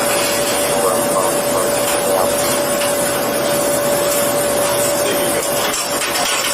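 Steady machine noise: an even rushing hiss with a constant mid-pitched hum running through it, without a break.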